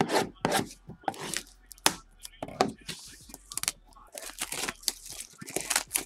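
Packaging on a sealed box of trading cards being torn open by hand: an irregular run of short rips with crinkling and rustling.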